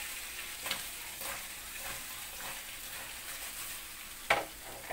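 Stuffed green capsicums sizzling in hot oil in a kadhai while the pan is tossed by its handle to turn them, the peppers shifting against the pan with small knocks. A sharp metal knock about four seconds in is the loudest moment, as the kadhai meets the gas burner.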